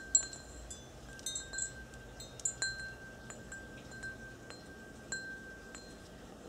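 Small chimes tinkling: a dozen or so light, irregular strikes, each leaving a short high ringing tone.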